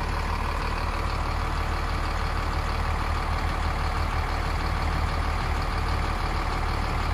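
Steady low hum with a rushing noise at a diesel fuel pump while a truck's tank fills.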